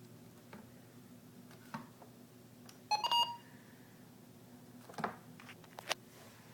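A low electrical hum with a few scattered clicks, and a quick cluster of short electronic beeps about three seconds in.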